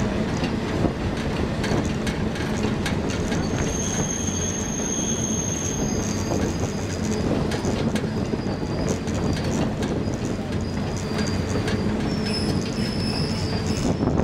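Steam excursion train's steel wheels rolling on curving track, heard from an open passenger car: a steady rumble and clatter with high-pitched wheel squeal, strongest a few seconds in.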